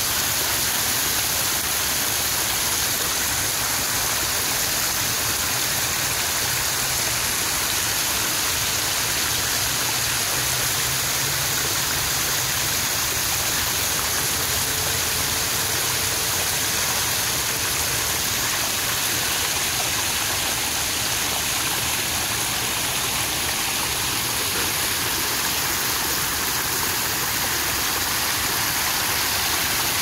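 Backyard pond waterfall splashing steadily as water cascades over stacked boulders and runs down a rocky stream.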